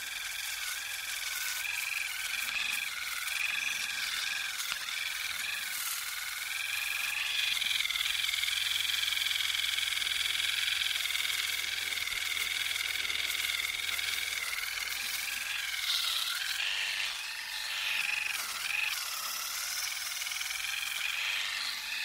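Electric toothbrush running, a continuous high-pitched buzz whose pitch wavers and dips now and then.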